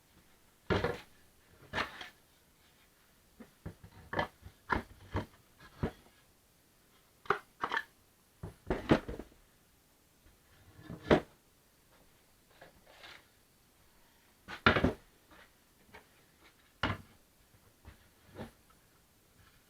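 Irregular knocks and clunks of hard objects being handled and set down, about a dozen over the stretch, loudest about 11 and 15 seconds in, with quiet between them.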